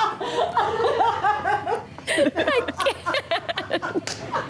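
A woman laughing hard and uncontrollably, in short repeated bursts of giggling.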